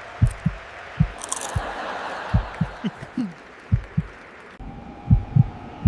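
Deep thumps at uneven intervals, some in close pairs, each dropping quickly in pitch, over a steady hiss.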